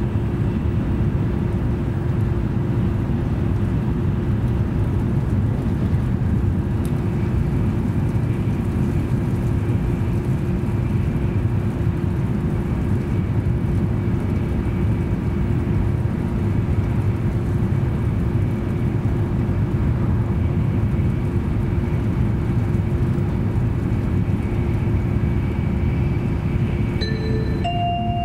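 Steady rumble and running noise inside an N700-series Shinkansen passenger car travelling at speed, with a steady low hum running through it. About a second before the end, the onboard announcement chime begins with a few bright, bell-like notes.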